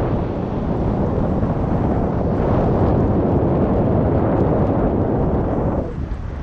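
Wind buffeting the microphone: a loud, steady rush of low noise with no distinct tones, dropping away suddenly near the end.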